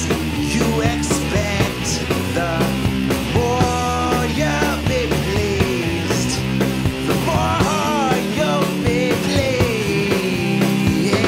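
Rock music with a steady drum beat, bass and a bending lead melody line.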